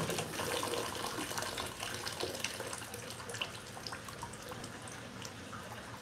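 Water running and splashing inside a GE washing machine's tub, a steady rushing noise with small scattered ticks.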